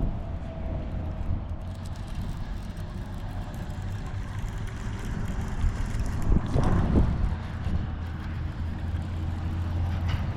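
Wind rumbling on the microphone in a steady low roar, with a short louder rustle about two-thirds of the way through.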